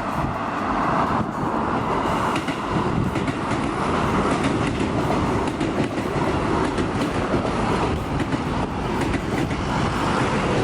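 Keio Line electric commuter train running past on the tracks: a steady rumble of wheels on rail, with repeated clicks as the wheels go over rail joints.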